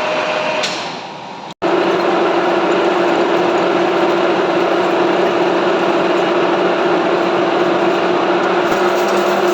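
Metal lathe running with a steady machine hum. About a second and a half in, the sound drops out abruptly and comes back at once at a steady level with a lower hum.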